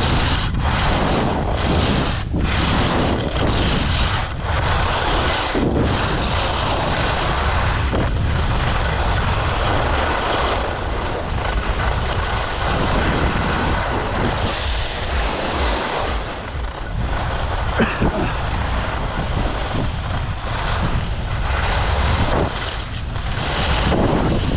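Wind buffeting the microphone over the scrape of skis side-slipping down the snow of a race course, pulsing in short regular surges during the first few seconds.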